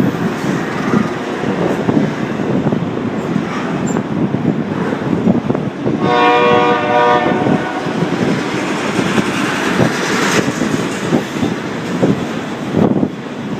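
Freight train rolling past with a steady rumble and wheel noise on the rails. A locomotive horn sounds once for about a second and a half, about halfway through.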